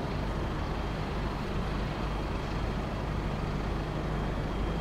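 Airbus A321-211's CFM56 jet engines at take-off thrust, heard from a distance as a steady rumble while the airliner accelerates down the runway.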